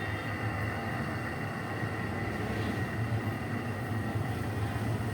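A three-phase electric motor of about two horsepower running steadily, with a low hum and a steady high-pitched whine.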